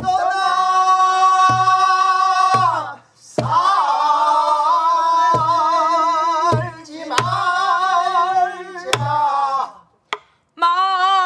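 A group of pansori singers, men and women, sings slow phrases in long held notes with wide vibrato, with short breaths between phrases. A buk barrel drum is struck every second or two under the singing.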